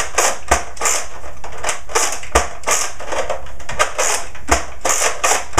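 Nerf Zombie Strike Slingfire dart blaster fired as fast as possible: a rapid run of hard plastic clacks and clicks from its sling-style lever priming, and dart shots.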